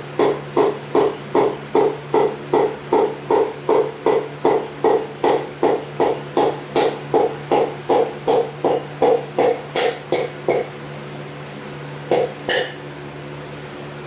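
A hammer handle tapping a piston crown in quick, steady knocks, about three a second, driving the piston and its rings through a ring compressor into the cylinder bore of a Ford 302 V8 block. The tapping stops about ten seconds in, with one last knock a couple of seconds later.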